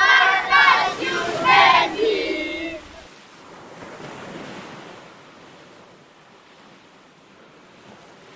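Children's voices shouting together for the first three seconds, then a steady wash of ocean surf that slowly fades out.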